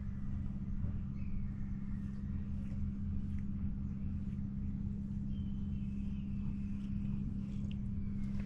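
Steady low mechanical hum at one constant pitch. Faint, thin high tones drift in above it twice, each lasting a second or more.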